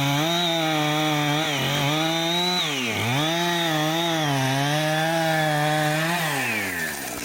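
Two-stroke chainsaw running at full throttle while cutting into a tree. Its pitch wavers and sags under the load of the cut and dips sharply about three seconds in. Near the end the pitch falls away as the throttle is let off.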